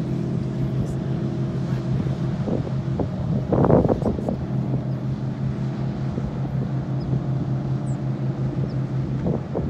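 Speedboat engine running steadily at speed as the boat passes, a constant droning hum. A short, louder rush of wind on the microphone comes a few seconds in.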